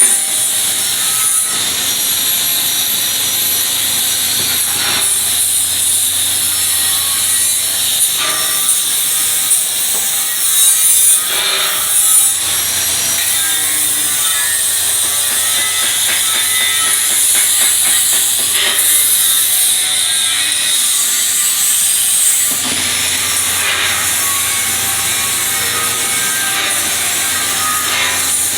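Stick (SMAW) welding arc burning a 1/8-inch 7018 electrode: a steady crackling hiss with scattered small pops over a faint low hum.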